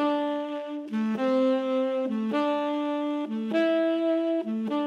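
Saxophone quartet playing slow held chords, each lasting about a second, joined by short passing notes.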